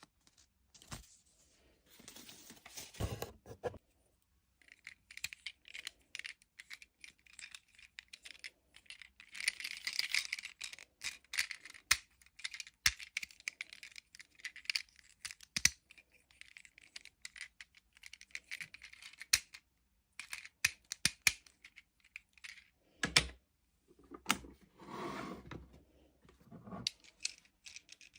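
Toy packaging being handled and opened: plastic and cardboard rustling and tearing, with many small clicks and taps of plastic pieces.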